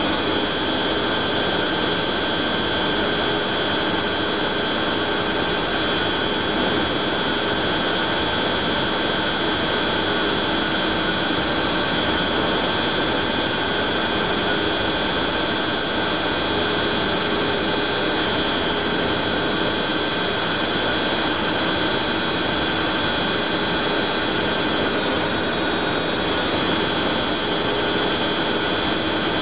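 Mazak Integrex 35 CNC lathe running steadily, with a constant whine of several steady tones over even machine noise.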